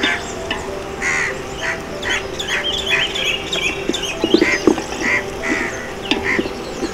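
Birds calling again and again, a few short calls a second, over a steady low tone. About four seconds in come a few short knocks and scrapes of a wooden spatula stirring food in a steel pot.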